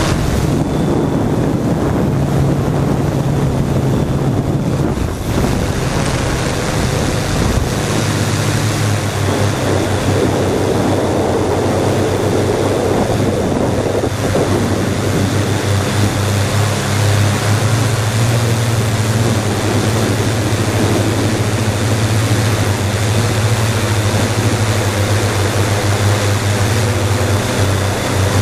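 Quadcopter drone's electric motors and propellers humming steadily, picked up by the camera on the drone, with wind noise rushing over the microphone. The hum drops in pitch about eight seconds in.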